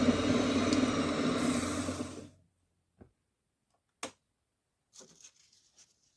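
Electric wood lathe running steadily, then switched off about two seconds in and quickly running down to silence; a few light knocks follow in the quiet.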